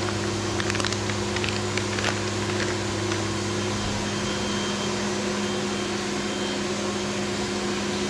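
Steady machine hum with several steady tones from a Robodrill CNC machining centre running a cutting job. Light metallic clicks and taps of vise parts being handled come in the first three seconds, and a deeper part of the hum drops away about four seconds in.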